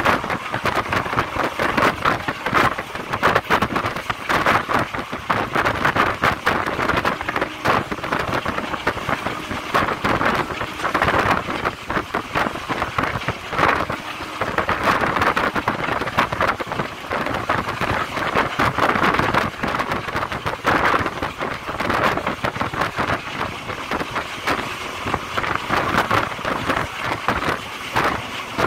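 A moving passenger train: the continuous rumble and rattle of the wheels and carriage on the track, mixed with rushing wind.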